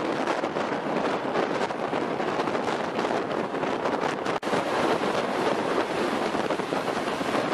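Wind rushing in at the window of a moving passenger train and buffeting the microphone, over the train's running noise. It is a steady rush, cut off for a moment about four and a half seconds in.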